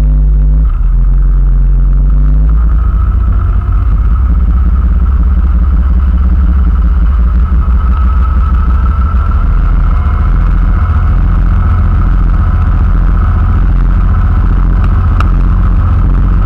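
Motorboat engine throttling up, its pitch rising over the first couple of seconds, then running hard with a steady low rumble as the boat accelerates onto plane towing a knee boarder, with the wake churning behind it.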